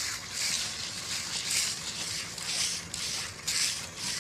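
Hand tools scraping and spreading wet concrete in repeated strokes, about one a second.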